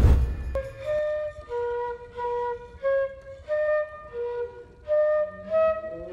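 Concert flute playing a slow melody of separate held notes, each about half a second long, after a brief thump at the very start. Near the end a lower wavering tone starts to rise beneath the flute.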